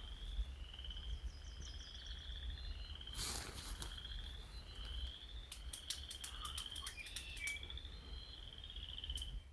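Frogs calling in repeated high trills, each under a second long with short gaps, over a low rumble, with scattered sharp clicks and a brief rustle about three seconds in.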